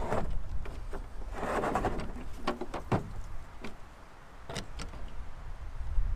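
Plastic clicks and knocks as a laser level is handled in and out of its hard plastic carrying case and set down on a pickup's plastic tailgate, with a short rustle about a second and a half in.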